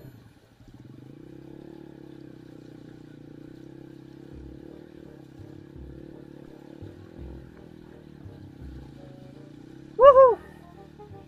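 Motorcycle engine running steadily at low revs. About ten seconds in, a short, loud cry rises and falls in pitch over it.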